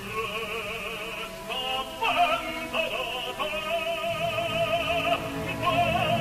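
Operatic singing with wide vibrato over an orchestra, with a long held note in the middle.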